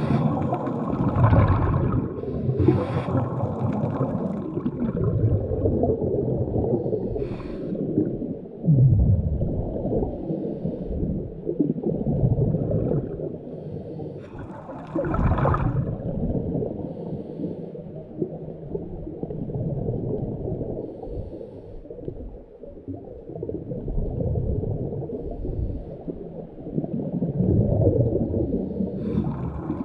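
Muffled underwater sound of water moving around the camera, with a few brief louder rushes of bubbling.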